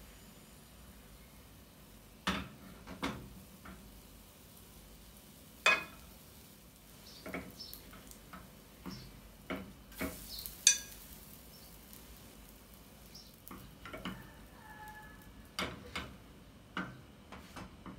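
A ladle and a silicone spatula clink and knock against a glass mixing bowl and a small nonstick frying pan in scattered short strikes while pancake batter fries with a faint sizzle. The sharpest knocks come a little before 6 s and near 11 s.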